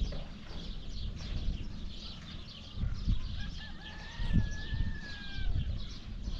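Birds calling in the background: many short chirps throughout, with one drawn-out call about halfway through, over a low rumble.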